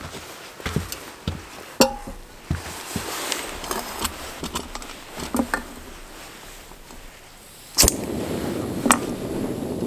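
Clinks and taps of a metal cook pot and canister camp stove being handled, then about eight seconds in a sharp click as the stove is lit, and the burner starts running with a steady hiss.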